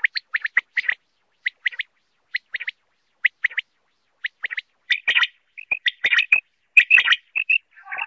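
Quail calling: short, sharp notes repeated in quick clusters. They are sparse in the middle and come faster and louder from about five seconds in.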